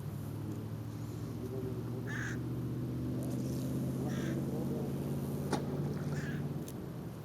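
A steady engine drone that fades out near the end, with short harsh bird calls about every two seconds and a single click.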